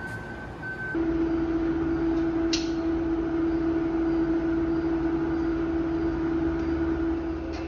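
Steady hum of refrigeration machinery, with a constant tone over a machine drone. The hum changes character about a second in, and there is a brief sharp chirp a little later.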